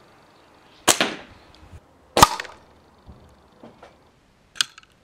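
Air rifle shots: a sharp crack about a second in and a louder one about a second later, then a few faint ticks and a smaller click near the end.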